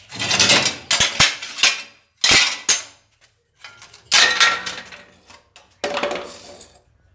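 Rusty metal bicycle parts and scrap clanking and scraping against each other and the concrete floor as they are shifted by hand, in a string of sharp clanks and clatters.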